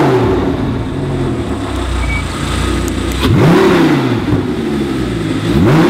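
Audi R8 V10 5.2 engine being blipped at standstill through an Xcentric valvetronic exhaust with its valves closed. The revs fall back to idle from a blip, then rise and drop again quickly about three seconds in and once more near the end.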